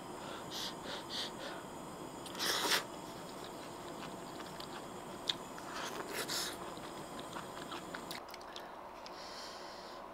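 Close-up eating sounds of a person chewing a mouthful of noodles and seaweed, with two short, louder slurps, about a quarter of the way in and just past the middle, as broth is sipped off a spoon.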